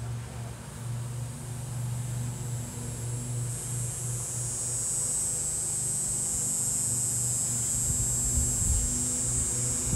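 A steady low hum throughout, joined about three and a half seconds in by a steady high-pitched drone, with a few low rumbles near the end.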